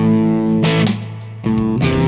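Single-coil electric guitar playing a blues shuffle through an amp-in-a-box pedal set on the edge of breakup, so the tone is only lightly overdriven. Chords are struck about two-thirds of a second in, then ring down into a brief quieter gap before the next chord hits about a second and a half in.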